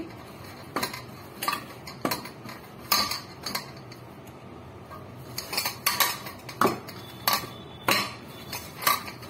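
Metal kitchen utensils and dishes clinking and knocking as they are handled, in irregular sharp clacks with a short lull about halfway through.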